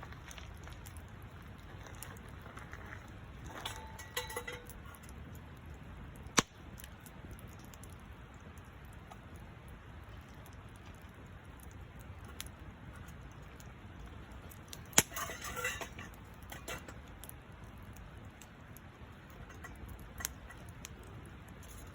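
Campfire burning, with occasional sharp pops and crackles over a low steady background noise; the loudest pops come about six seconds in and in a short cluster around the fifteen-second mark.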